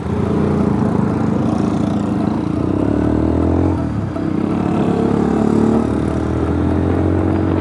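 Yamaha YBR125's single-cylinder four-stroke engine running under way, its pitch climbing as the motorcycle accelerates. There is a brief dip about four seconds in before the pitch climbs again.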